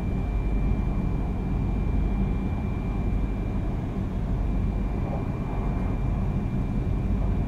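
Interior running noise of a Yamagata Shinkansen Tsubasa train on the move: a steady low rumble from the wheels and track, with a faint steady high tone over it.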